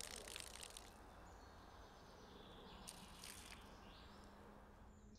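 Near silence: faint woodland ambience, with a few faint high chirps around the middle.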